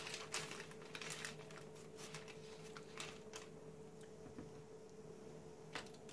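Faint rustling of parchment paper and light taps as cut pieces of filo-pastry (yufka) börek are picked up and set down on a lined baking tray, with scattered soft handling sounds over a faint steady hum.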